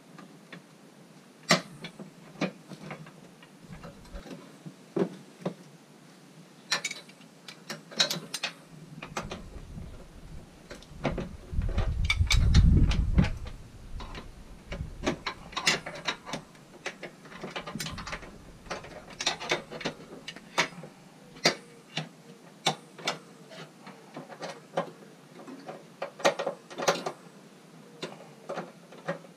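Hand ratchet clicking in short runs as a transmission mount bolt is turned, with metal-on-metal clinks of the tool in the engine bay. A brief low rumble near the middle.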